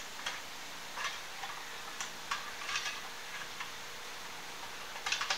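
Metal hand tools clicking and clinking on the rear brake hardware during teardown, in several short bursts of sharp clicks: a few in the first three seconds and one more near the end.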